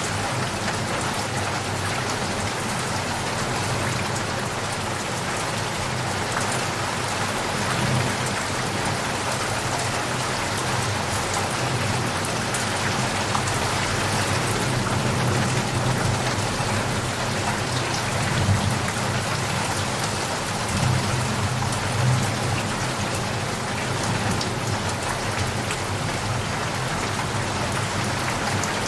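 Steady rain falling on surfaces, a dense even patter, with a low rumble of distant thunder that swells and fades now and then.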